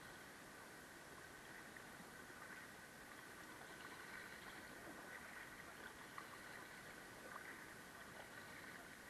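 Near silence: a faint steady hiss of river water moving around a kayak, with a couple of faint ticks.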